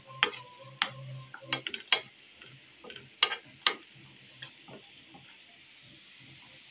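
Metal spoon clicking and scraping against a frying pan as garlic, dried coriander and seven-spice mix toast in oil with a soft steady sizzle. The clicks come irregularly through the first four seconds or so, then only the sizzle goes on.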